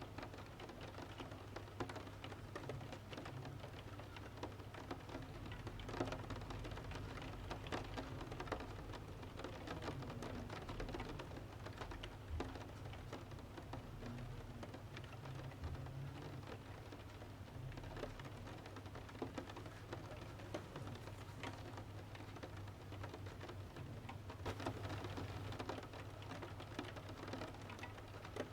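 Steady rain pattering on a window, mixed with the irregular crackles and pops of a wood fire burning in a stove, over a soft low rumble.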